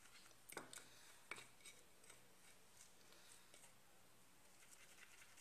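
Near silence with a few faint clicks of a utensil against a bowl as a thick egg-white paste is beaten, the clearest about half a second and a second and a quarter in.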